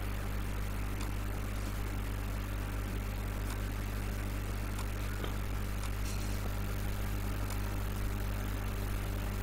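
Steady low electrical hum and light hiss of the recording setup, with a few faint clicks of a computer mouse as boundary lines are drawn.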